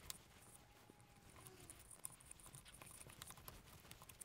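Near silence, with faint rubbing and small scattered ticks of a hand wiping down the inletting of a laminated wood rifle stock.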